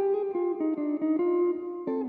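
Clean-toned electric guitar played solo in chord-melody style: plucked chords and melody notes follow one another, each ringing on, with a fuller chord struck near the end.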